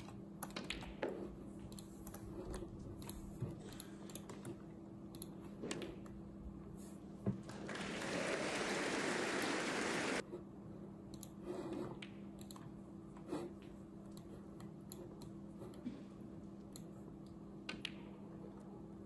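Scattered light clicks, like typing on a computer keyboard, over a steady low hum. About eight seconds in, a loud rushing noise runs for about two and a half seconds and cuts off suddenly.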